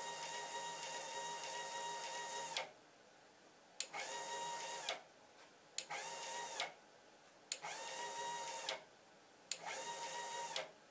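DC motor and repaired worm-screw drive of an extruder ram running in five short spurts with a steady whine, stopping and starting as it tracks a position slider. Its pitch bends briefly as each run starts and stops.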